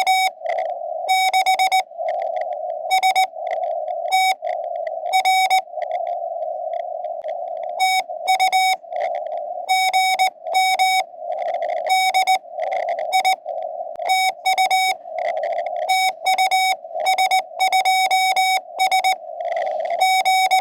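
Morse code (CW) from a small QRP Labs ham radio transceiver: one steady beeping tone keyed on and off in dots and dashes, in groups with short gaps, over a continuous narrow hiss of receiver noise.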